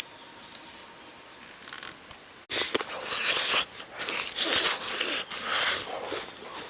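Faint mouth clicks of chewing, then after a sudden cut about two and a half seconds in, loud irregular rustling and scraping of long coarse hair brushing against the microphone up close.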